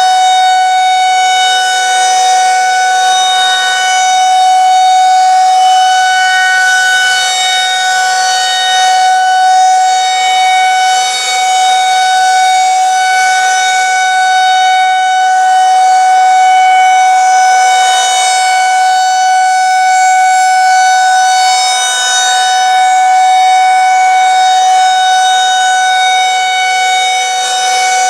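Federal Signal 2001-130 electromechanical outdoor warning siren sounding a steady single tone at full speed during its monthly test, its loudness swelling and fading every few seconds as the rotating head sweeps past.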